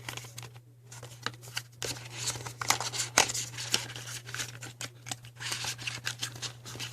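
A small cardboard box being opened and its contents handled: an irregular run of clicks, scrapes and rustles of packaging, with a short pause just under a second in.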